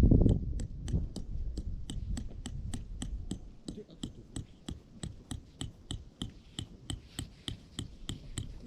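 Tent peg being hammered into the ground with rapid, even strikes, about four a second. A louder rustle of handling comes right at the start.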